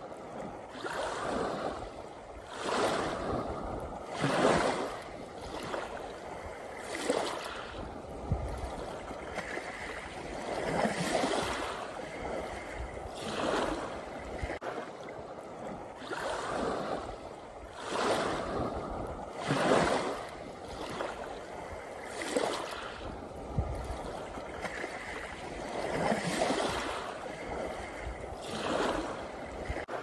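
Small waves breaking and washing up a pebble beach, each one swelling and fading, one every two to four seconds.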